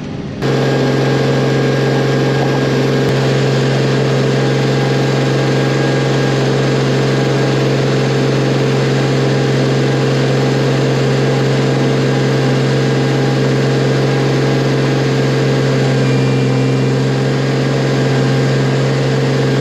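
Diesel engine of a Miller Nitro 5240 self-propelled boom sprayer running at a steady working speed while driving and spraying, a constant low hum with a steady rushing noise over it. It cuts in suddenly about half a second in.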